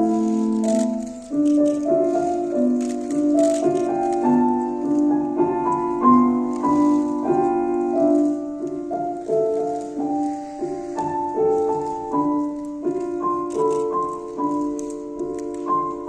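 Piano music: a flowing line of notes over held lower notes, growing gradually softer toward the end.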